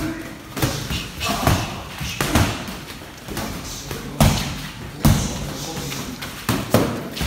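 Padded boxing gloves landing punches during sparring: about eight sharp thuds at irregular intervals, a couple of them in quick pairs.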